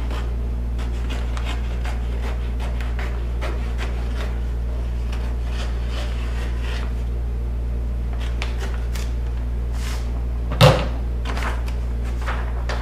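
Scissors cutting through a sheet of vinyl wrap and its paper backing: a string of small, crisp snips and rustles, with one much louder knock about ten and a half seconds in.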